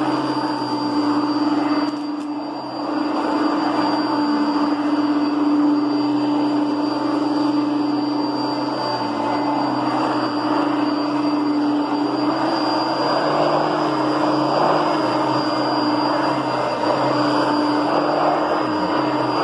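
Kenmore Heavy Duty Plus upright vacuum cleaner with a 6.4-amp motor, running steadily: a constant motor hum with a thin high whine over the rush of air, dipping briefly about two seconds in.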